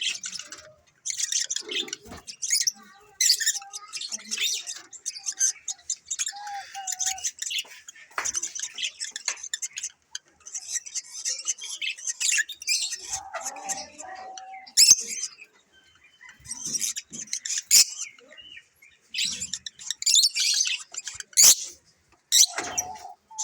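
African lovebirds chattering and chirping in rapid, shrill bursts with short pauses, broken by a few sharp, loud squawks.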